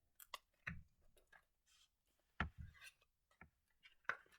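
Faint, scattered clicks and taps of a small cardboard calendar pouch and its paper contents being handled and opened, with two sharper taps about two and a half seconds in and just after four seconds.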